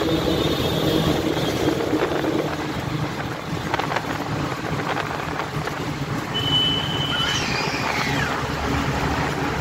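Steady rumble of a road vehicle's engine and tyres with wind noise, heard from inside the vehicle as it crosses a steel truss bridge. About two-thirds of the way through, a brief high steady tone sounds, followed by a few short gliding squeals.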